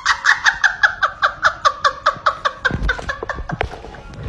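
A person laughing hard in rapid, high-pitched bursts, about seven a second, that trail off just past the middle, with a few dull knocks near the end of the laughing.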